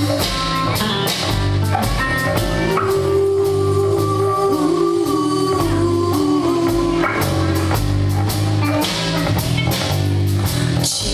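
Live blues-rock band playing an instrumental passage on electric guitars, electric bass and drum kit, with a guitar line holding and bending notes.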